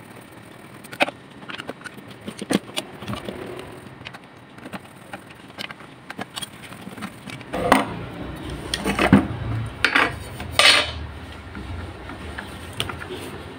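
Metal clicks and clinks of a screwdriver working the screws on an electric fan motor's steel back plate, with the motor and its shaft being handled. Louder knocks come in a cluster a little past halfway, over a low rumble that starts there.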